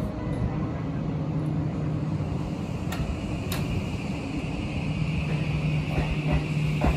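Shin-Keisei 8800 series electric train pulling away from the platform with a steady low hum from its motors. A steady whine joins about halfway through, and there are a few sharp clicks from the wheels and track in the middle and near the end.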